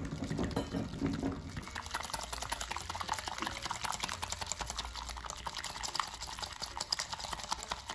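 A whisk beating egg in a glass bowl: fast, irregular wet slapping and clicking of the wires through the liquid.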